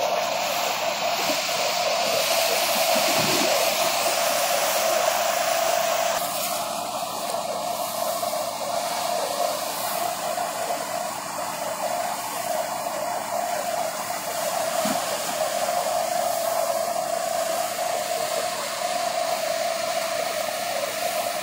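Harman paddy thresher running steadily as rice straw is fed into it: a constant whirring hum with a rushing hiss over it from the threshing drum and blower. The rushing part eases a little about six seconds in.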